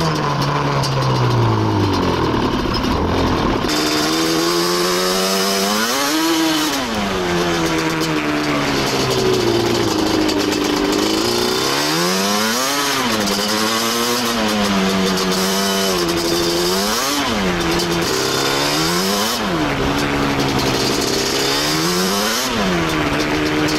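Yamaha Banshee's two-stroke twin engine under way on a trail: its pitch falls over the first few seconds, then it is revved up and let back down again and again, every couple of seconds toward the end.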